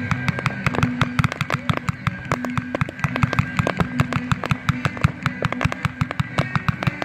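Fireworks barrage firing from the ground: a rapid, unbroken string of sharp reports, several a second, as a run of shots launches in quick succession.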